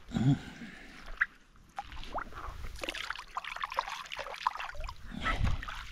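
Water trickling and splashing in small irregular spatters, with a brief low thump right at the start.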